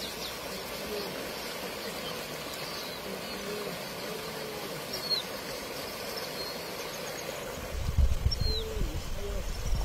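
Steady rushing hiss of a fast-flowing flooded river, with a bird chirping briefly three times. From about eight seconds in, wind buffets the microphone in uneven low bursts.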